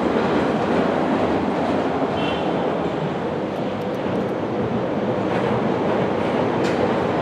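Freightliner Class 66 diesel locomotive, with its EMD two-stroke V12 engine, running as it rolls slowly in at the head of a container freight train. A steady rumble of engine and wheels.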